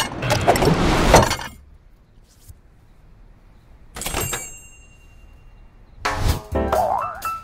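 Cartoon sound effects: a clattering crash of knocks and breaking sounds for about a second and a half, then a single clink with a short ring about four seconds in. Music starts near the end.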